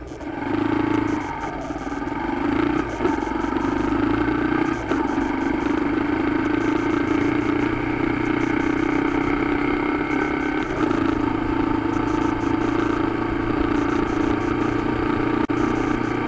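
Motorcycle engine pulling away from a standstill: the sound jumps up in the first second, then runs on steadily at town speed, its note changing twice as the bike goes up through the gears, with road and wind noise on the bike-mounted camera.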